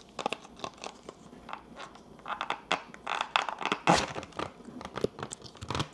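Plastic food packaging crinkling and rustling as it is handled and torn open, with scattered short clicks and a louder crackle about four seconds in.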